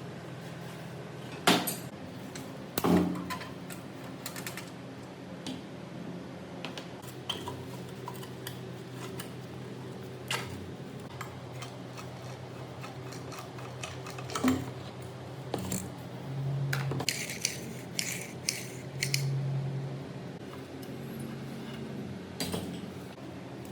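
Metal parts and hand tools clinking and knocking at irregular intervals, with two sharp knocks in the first few seconds, over a low steady hum.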